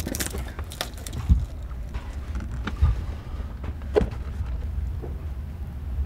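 Scuffs and knocks of people clambering over rock in a cave, a few sharper knocks among them, over a steady low rumble.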